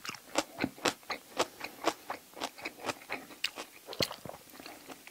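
Close-miked mouth chewing spicy braised seafood with bean sprouts: short wet clicks and smacks, about three to four a second.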